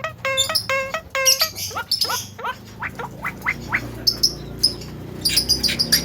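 Javan myna calling: a fast run of repeated nasal notes in the first second, then a series of short rising chirps, then sharp high chirps and clicks near the end.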